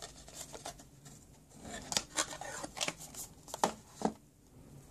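A smartphone being pulled out of its cardboard retail box: cardboard and plastic rustling and scraping, with a run of sharp clicks and taps in the second half.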